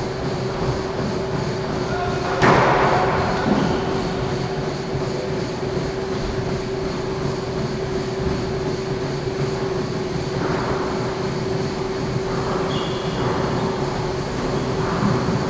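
Squash ball struck once, a sharp smack with a short ring off the court walls about two and a half seconds in, with a few fainter knocks later. Under it runs a steady hum with one constant tone.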